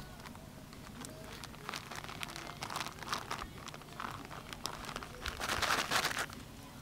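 Plastic tarp crinkling and crackling under a small puppy's paws as it walks and trots across it, in uneven bursts that get busier and are loudest shortly before the end.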